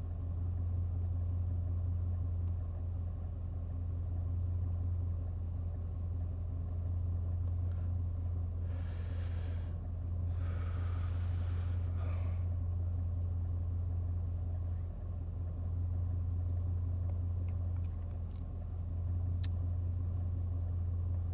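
A steady low rumble, with two short bursts of hiss about nine and eleven seconds in and a single sharp click near the end.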